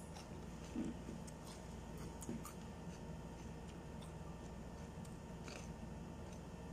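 Close chewing of crunchy raw vegetables: faint, irregular crunches and small clicks over a low steady hum.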